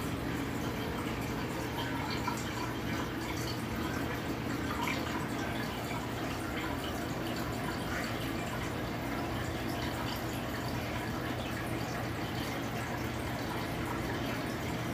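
Aquarium filter running: a steady trickle and dripping of water falling back into the tank, over a constant low electrical hum.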